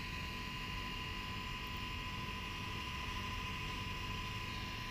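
Steady background rumble and hiss with a constant thin high tone running through it; no distinct event.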